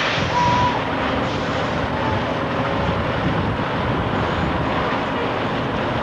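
Diesel engine of an articulated livestock lorry running as it pulls slowly across the yard. A short hiss comes at the start, and a brief high squeak follows about half a second in.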